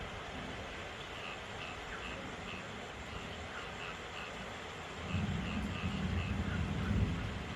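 Steady rain falling, with frogs calling in short repeated chirps. A low rumble comes up about five seconds in.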